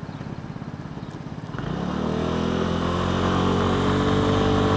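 125cc scooter engine ticking over with a low, even pulse, then the throttle opens about a second and a half in and it pulls away. Its pitch rises and its level climbs, then it holds steady at cruising speed.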